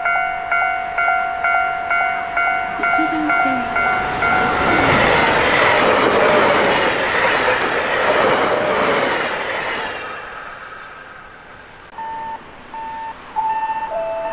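JR Hokkaido 733 series 3000 electric train passing through the station at speed: a loud rush of wheel and rail noise that swells about four seconds in and fades after about ten seconds. A warning bell rings about three times a second until the train arrives, and intermittent beeping follows near the end.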